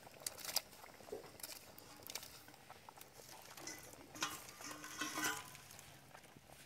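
Water boiling in a large aluminium pot of dal, with chopped shallots and tomato tipped in from a plate near the start, a few sharp clicks. Brief louder sounds about four and five seconds in.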